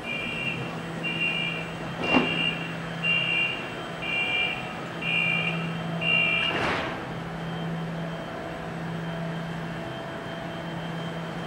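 Door-closing warning: seven two-tone electronic beeps about once a second from the platform screen doors and train, with a sharp knock about two seconds in and a louder one as the beeps stop, over a steady low hum.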